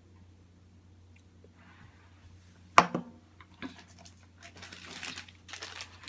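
A single sharp click about three seconds in, then repeated crinkling rustles of packaging being handled during a meal, over a steady low hum.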